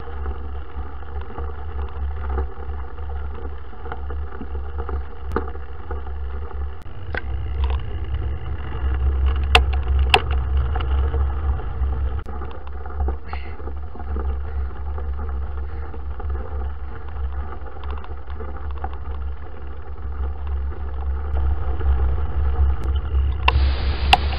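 Wind rumbling steadily on the microphone of a handlebar-mounted camera riding along a gravel track, with scattered sharp clicks and rattles from the rough surface. Near the end the hiss turns brighter and a little louder.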